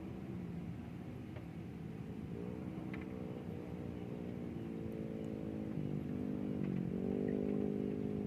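Small engine running steadily, its pitch shifting a couple of times and dipping then rising again, getting louder toward the end.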